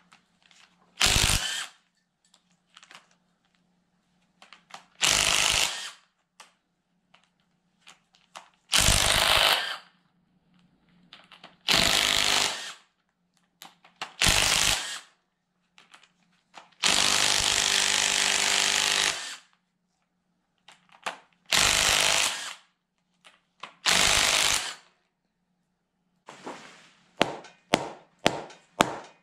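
Cordless impact wrench run in eight short bursts, one of them longer at about two seconds, loosening the cylinder head bolts of a Massey Ferguson backhoe engine. Near the end a mallet strikes the cylinder head repeatedly, about three blows a second.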